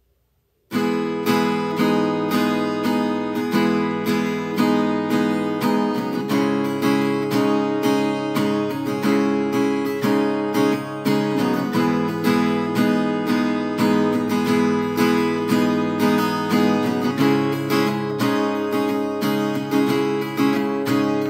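Acoustic guitar strummed in a steady rhythm, chords ringing on one after another. It starts suddenly about a second in.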